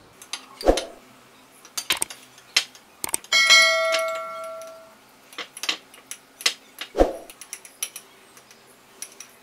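A spoon scraping and clinking against glass bowls as halwa is spooned from one bowl into another, with two dull knocks of a bowl on the table, under a second in and about seven seconds in. A little after three seconds a bright bell-like ding rings and dies away over about a second and a half.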